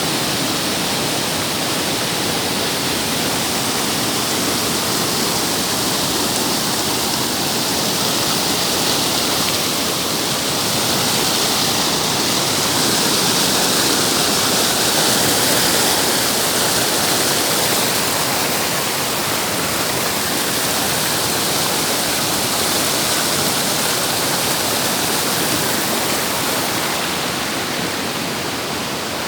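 Rushing water, a steady even hiss with no breaks, swelling slightly in the middle.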